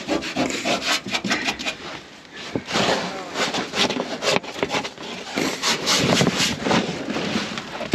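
Irregular scraping and rubbing with many light knocks, the sound of objects being handled and shifted about.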